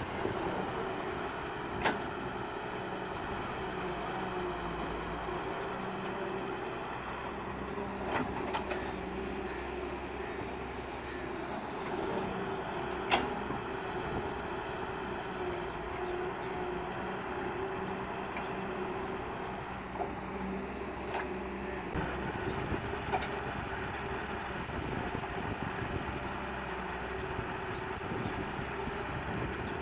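Diesel engine of a Doosan 140W wheeled excavator running steadily under load as it digs, with a few sharp knocks.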